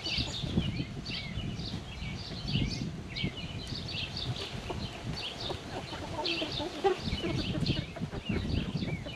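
Backyard hens clucking as they peck at tossed bread, with constant high chirping of small birds behind them.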